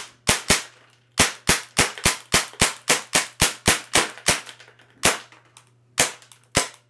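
CO2-powered MAC-11-style airsoft gun firing on semi-auto: about twenty sharp shots. They come a few at a time at first, then as a quick run of about four a second, then as a few spaced single shots near the end.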